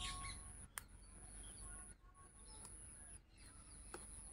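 Faint outdoor ambience: birds chirping softly over a steady, very high-pitched whine that drops out briefly about every second. A sharp click comes a little under a second in, and a softer one near the end.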